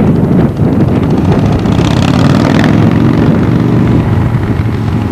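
Wind rumbling on the camcorder microphone, with a vehicle passing by on the road in the middle, its tyre hiss and engine hum swelling and fading.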